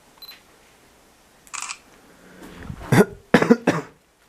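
A man coughing, three harsh coughs in quick succession near the end, after a short breathy hiss.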